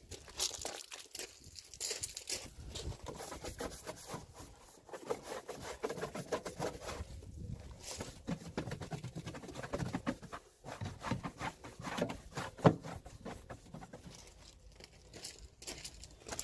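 A brush scrubbing a foam-covered tyre and alloy wheel, with the cleaning foam crackling and dripping. The scrubbing grows heavier about halfway through, and there is one sharp knock near the end.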